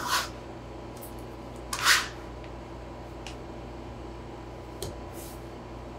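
Metal bench scraper scraping across a floured wooden board as it gathers and folds potato gnocchi dough: two short scrapes about two seconds apart, then a few faint taps.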